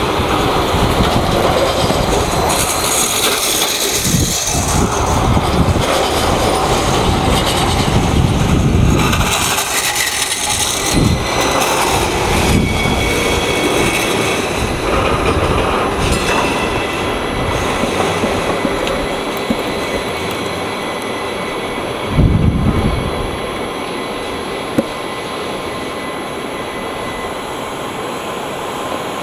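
Kinki Sharyo low-floor light rail train running along street track, a steady rolling rumble of wheels and motors with thin high wheel squeals now and then as it takes the curve. A short, louder low thud comes about three-quarters of the way through.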